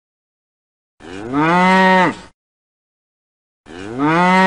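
A cow mooing twice, the same call repeated. Each moo lasts a little over a second, rising in pitch at the start and dropping off at the end; the second begins near the end.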